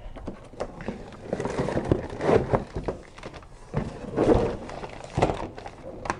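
Cardboard packaging being handled: box flaps opened and a cardboard insert pulled out, with rustling of plastic bags and scraping, in irregular bursts with a few light knocks.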